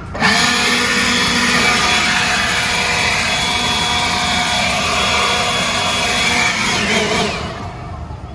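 A leaf blower switches on abruptly and runs steadily with a whining hiss for about seven seconds, then winds down.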